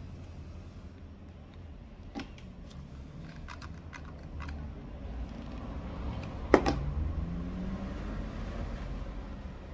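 Light clicks and taps of crafting by hand at a table, handling fabric pieces and a hot glue gun, with one louder knock about two-thirds of the way through as the glue gun is set down, over a low steady hum.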